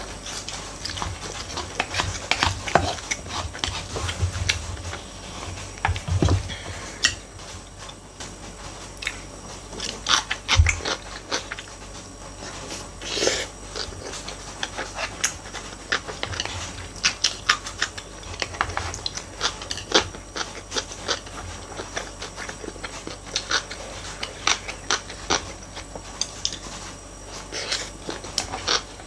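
Close-miked eating sounds: irregular chewing and lip-smacking on rice and side dishes, with wooden chopsticks clicking against wooden bowls.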